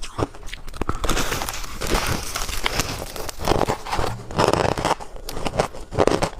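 Ice being crunched and chewed: a dense crackling stretch, then a run of separate crunches.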